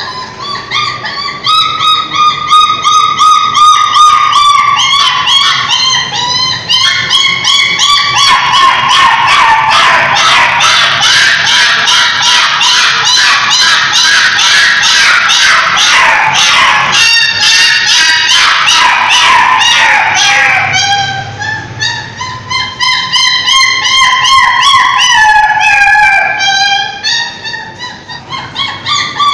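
Dogs howling and whimpering in long, wavering cries that rise and fall in pitch. In the middle the howls are crowded by a rapid run of sharp yips, then the long cries return.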